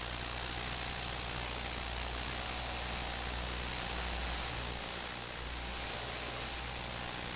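Steady low drone of compressor-station engines running, with a constant hiss over it; the drone dips briefly about five seconds in.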